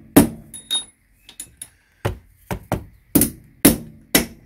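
Hammer blows on an old bearing race used as a driver, tapping a new steering-head bearing race down into its seat in a BMW F800GS steering head. There are about eight sharp, uneven strikes, some in quick pairs, each with a brief metallic ring.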